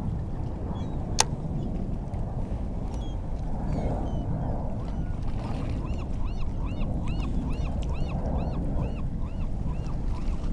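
A bird calling in a quick series of short rising-and-falling notes, two or three a second, through the second half. Underneath is a steady low wash of wind and water, and there is a single sharp click about a second in.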